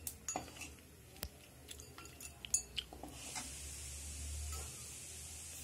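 Steel ladle tapping and scraping lightly against an iron kadhai and a steel bowl while hot oil is scooped out and poured off, a few soft clicks and drips. About halfway through a faint steady hiss comes in under it.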